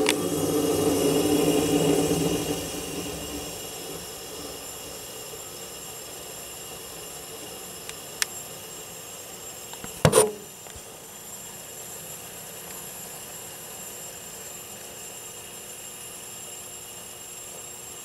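Vintage Westinghouse 5,000 BTU window air conditioner running, its compressor, which the owner takes for a reciprocating type, humming steadily along with the fan. The sound is louder for the first couple of seconds, then settles. A small click comes about eight seconds in, and a sharp knock about ten seconds in.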